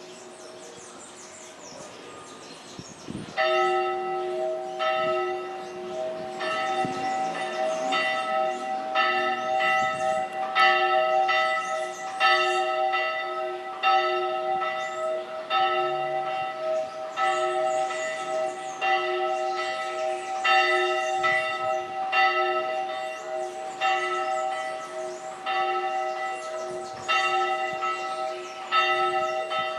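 Church bells ringing, struck again and again at about one stroke a second, each stroke ringing on into the next; the ringing starts about three seconds in. This is the church's daily midday bell ringing.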